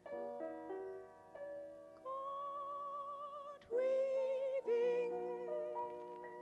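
Closing bars of a recorded song: sustained instrumental chords, then a female voice holding three long notes with vibrato from about two seconds in, fading toward the end.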